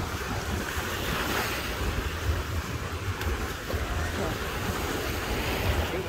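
Small waves breaking and washing up on a sandy shore, with wind buffeting the microphone as a low rumble.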